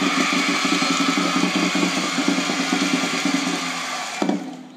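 A drum beaten in a fast roll, about eight to ten beats a second, for about four seconds, fading a little, then one single hit near the end, with a steady crowd shout over it.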